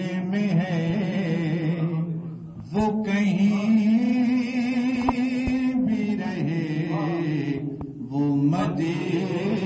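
A man reciting a naat, an Urdu devotional poem in praise of the Prophet, in a solo chanting voice with no instruments. He holds long, wavering notes, with short breaths about two and a half and eight seconds in.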